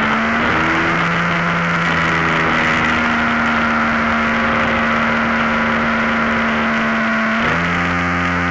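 Motor and propeller of a radio-controlled Extreme Flight MXS aerobatic plane, heard up close from its onboard camera, running at a steady throttle with a hiss of rushing air. About seven and a half seconds in, the pitch steps up as the throttle is opened.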